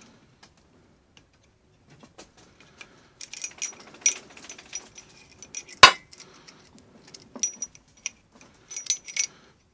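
Small steel parts of a Colt 1851 revolver clicking and clinking as it is handled and reassembled, starting about three seconds in, with one sharp loud click about six seconds in.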